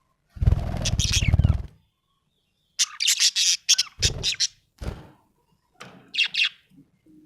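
Budgerigar chirping in short high bursts, several chirps at a time. In the first second and a half there is a louder, low-pitched rustling noise, and a couple of brief low thumps come a few seconds in.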